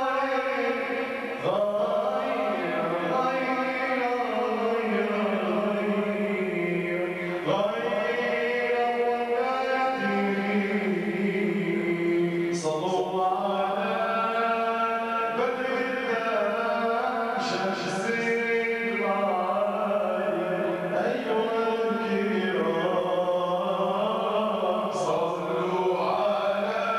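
Religious chanting: voices sing long melodic phrases that rise and fall, with short breaks between them.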